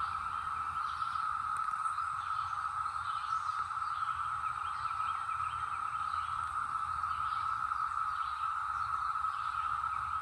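Brood X periodical cicadas in a dense chorus: a steady, even drone, with faint higher chirps scattered over it.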